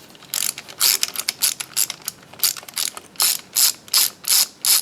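Ratcheting screwdriver clicking as it backs out a T25 Torx screw, a quick run of sharp ratchet clicks at about four a second.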